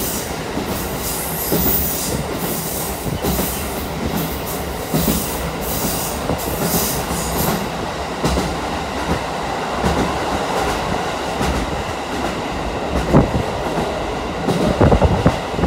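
Kushiro Shitsugen Norokko sightseeing train rolling along the track, heard from inside the carriage: a steady rumble of wheels on rail, with a few sharper knocks from the running gear later on.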